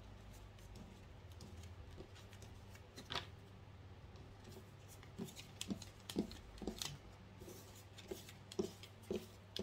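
Tarot cards being gathered up and stacked on a tabletop: faint scattered taps and slides of card against card and table, one about three seconds in and several more close together in the second half.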